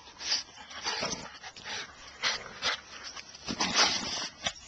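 American Staffordshire terrier sniffing hard with its nose in a mouse burrow: a string of short, irregular snuffles.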